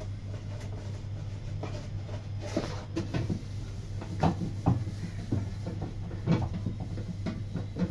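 Stainless-steel bowls clanking and scraping against each other as they are washed by hand, in a string of irregular knocks that come thicker in the second half.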